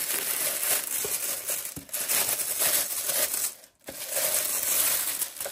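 Clear plastic wrapping film crinkling and crackling as it is pulled and unwound off a fabric lampshade, with a brief pause a little after halfway.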